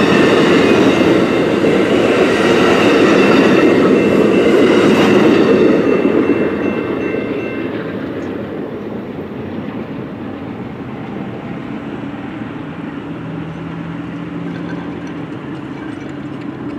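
Amtrak Superliner bilevel passenger cars rolling past on the rails, the wheels rumbling and clacking over the track. The sound fades away from about six seconds in as the last car clears, leaving a quieter steady background.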